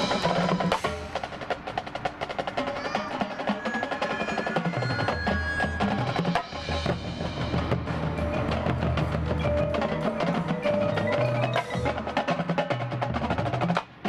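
Marching band playing a percussion-heavy passage: rapid drumming and front-ensemble mallet percussion, bells and marimba, ringing over low bass notes, with a few held pitched notes.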